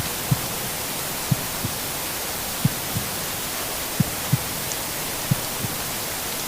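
Heartbeat sound: lub-dub pairs of soft low thumps, about 45 beats a minute, over a steady even hiss of rain.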